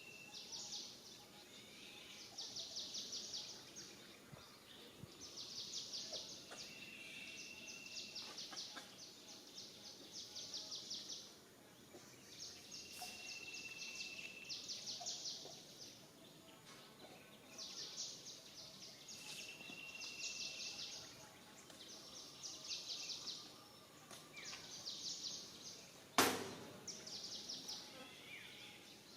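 Outdoor wildlife background of rapid buzzing trills that repeat every second or two, with a short high steady note about every six or seven seconds. One sharp knock comes near the end.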